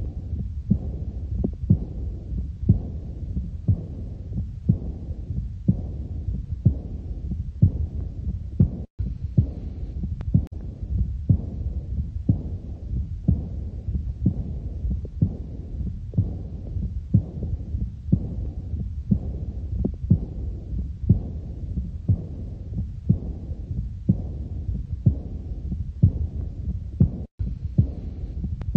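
Stethoscope recording of a human heartbeat, about one beat a second, each beat dull, low thuds over a steady low rumble. The sound drops out for an instant twice.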